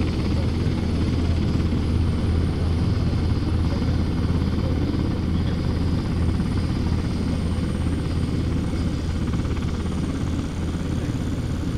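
AutoGyro Calidus autogyro's pusher-propeller engine running steadily at low power while it rolls along the runway: a steady low drone, a little quieter near the end.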